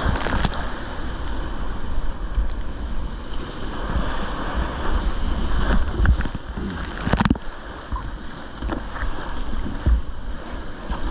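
Sea surf breaking and washing white over rocks right around a kayak, with water splashing onto the microphone and wind rumbling on it. A few sharp splashes stand out, the loudest about seven seconds in.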